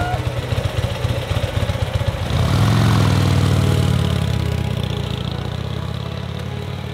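A 2014 Harley-Davidson police motorcycle's V-twin engine, with extra-loud Screaming Eagle exhaust, idles with a pulsing beat. About two seconds in it grows louder as the bike pulls away, then fades as it rides off.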